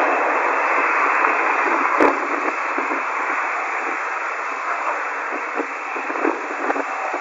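Radio static: a steady hiss on an open air-band radio channel, with a sharp click about two seconds in and a few faint crackles near the end.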